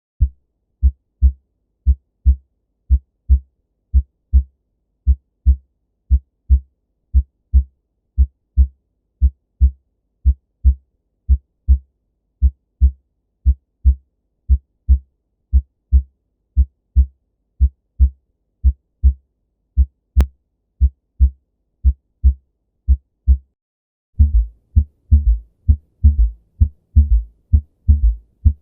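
Heart sounds heard through a stethoscope: a steady lub-dub of the first and second heart sounds (S1 and S2), about one beat a second. About 24 seconds in, the recording changes to a louder, fuller beat with an added third heart sound (S3), the ventricular gallop.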